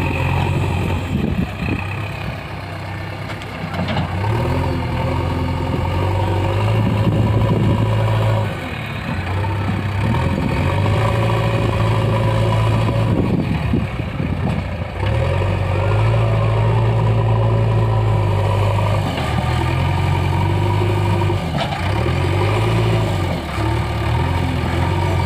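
JCB 3DX backhoe loader's diesel engine running loudly, its note rising and falling again and again as it works under changing load.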